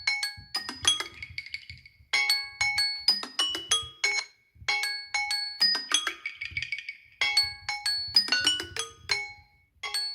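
Samsung Galaxy S10 ringtone: a bright mallet-percussion melody of quick struck notes, repeating in short phrases about every two and a half seconds, some ending in a brief shimmering roll.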